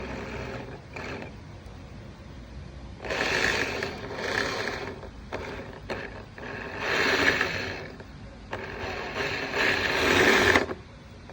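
Motor and gears of a disassembled MJX Hyper Go 16208 RC car whirring in about four bursts of a second or two each as the throttle is applied, after a quieter start.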